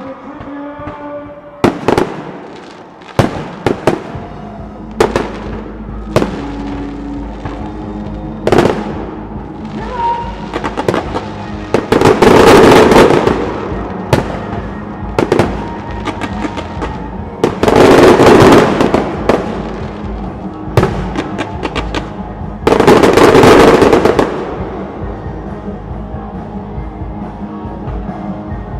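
Fireworks display: single sharp bangs every second or two, then three loud crackling barrages about five seconds apart, each lasting about a second and a half. Music plays underneath and carries on after the last barrage.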